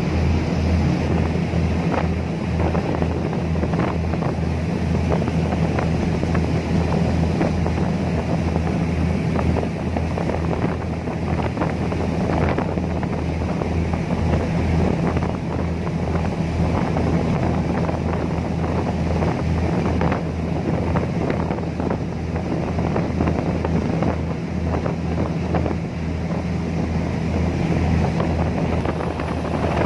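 Fast passenger ferry under way at speed: its engines give a steady low drone beneath the rush of water churned into the wake, with wind buffeting the microphone.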